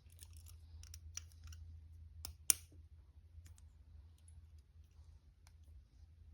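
Small metallic clicks of a pick working inside a handcuff's keyhole, scattered and irregular, with one sharper, louder click about two and a half seconds in.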